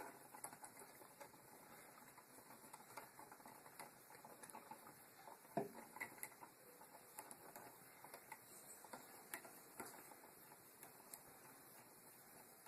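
Near silence with faint, scattered small clicks and ticks: a screwdriver tightening the wire terminal screws on a wall light switch. The clearest click comes about five and a half seconds in.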